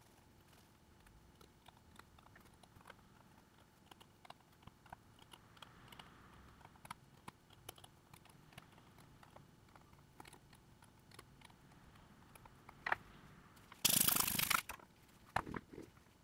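Scattered light clicks and taps of small tools and parts being handled during a smartphone repair, with a louder noise lasting under a second near the end.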